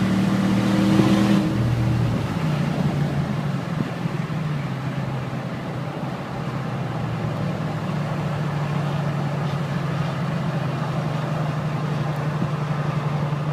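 A 2013 Ford F-150's 5.0 V8 pulling hard at highway speed through a resonator-delete 3-inch pipe into a Flowmaster 40 Series muffler, turned down before the rear axle, heard from the cab with the windows down. The exhaust note holds high, drops about a second and a half in, and then settles into a steady lower drone with wind noise.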